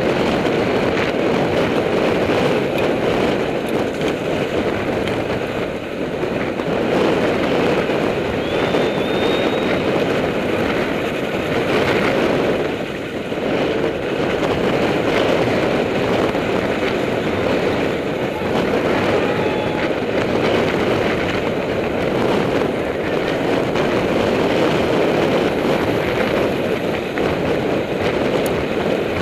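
Steady rush of wind on the microphone of a camera mounted on a mountain bike ridden fast over a dirt road, mixed with the tyres rolling on loose dirt.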